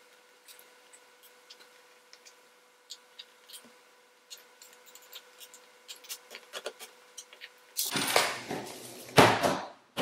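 Light clicks and taps of hands working on the underside of a white plastic MacBook, then two loud scraping thumps about eight and nine seconds in as the laptop is slid and turned over on a wooden table.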